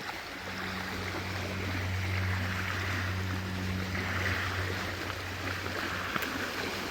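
Water moving along the river shore, under a steady low engine drone, such as a boat motor on the river.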